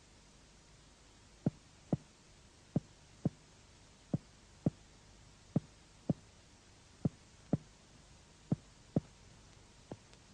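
Finger-on-finger percussion of the chest wall: short, sharp taps in pairs about half a second apart, six pairs spaced about a second and a half apart, then a fainter pair near the end. The taps are mapping the left border of cardiac dullness in the fifth intercostal space.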